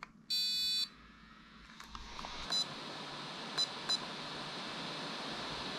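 FPV goggles beeping as they are switched on and set: one half-second electronic beep, then three short beeps a few seconds later. A steady hiss fades in under them from about two seconds in.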